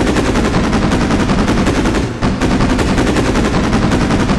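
Rapid machine-gun-like rattle, a fast run of sharp repeated hits, dipping briefly about two seconds in.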